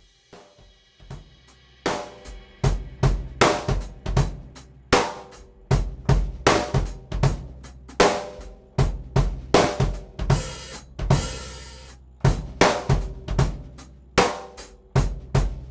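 Drum kit played in a groove that features a 14x4 Yamaha Birch Absolute Custom snare, with bass drum and cymbals. It starts with soft strokes and moves to strong, ringing hits about two seconds in. A cymbal wash comes near the two-thirds mark.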